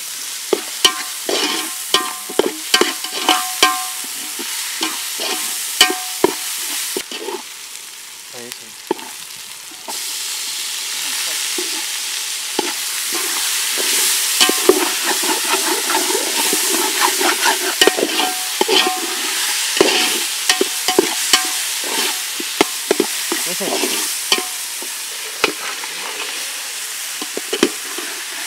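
Metal spatula scraping and knocking against an aluminium pot, stirring chopped onions and green chillies as they fry with a steady sizzle. The pot rings briefly with the strikes in the first few seconds, and the sizzle gets louder about a third of the way in.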